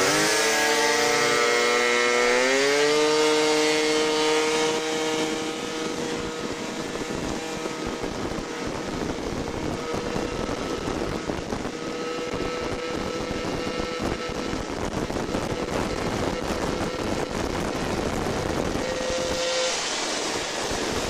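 Two-stroke scooter engine revving up as the scooter pulls away, its whine climbing over the first few seconds, then holding a steady pitch at cruising speed with wind noise on the microphone. It revs up briefly near the end.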